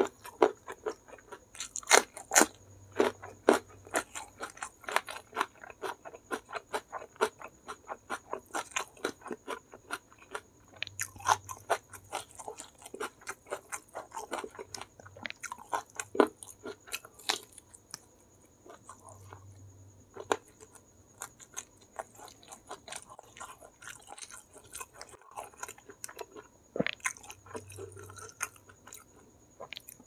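Close-up chewing of crispy fried chicken coated in chili sambal: wet mouth clicks and crunching, with a few louder crunches. The sounds come thick and fast at first and thin out past the middle.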